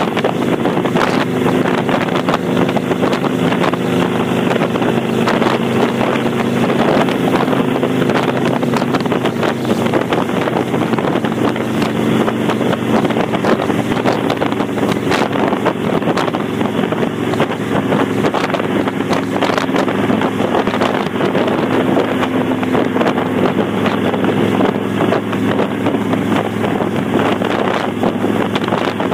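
Kawasaki Vulcan 800 V-twin running at a steady cruise through Vance & Hines Straight Shots exhaust with the baffle plugs removed, with heavy wind noise on the microphone.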